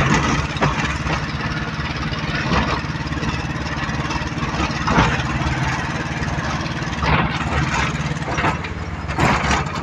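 Engine of a CNG goods carrier running steadily while driving, heard from inside the cab, with a few short thumps spread through it.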